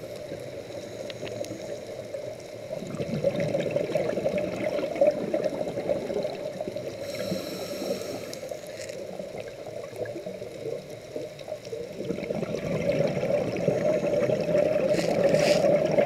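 Scuba diver's regulator breathing heard underwater: a bubbling rush of exhaled air, a short hiss of an inhalation through the regulator about seven seconds in, then bubbles again from about twelve seconds in.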